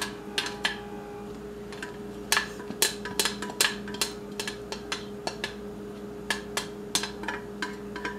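Irregular light knocks and clicks of a metal steamer basket tapped against a bowl as steamed vegetables are emptied out, over a steady low hum.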